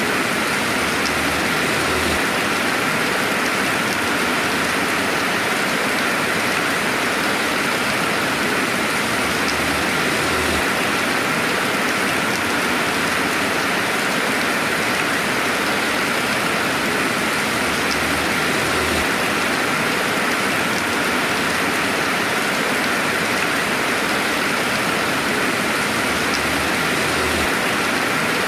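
Steady rainfall, an even, unbroken hiss with no thunder.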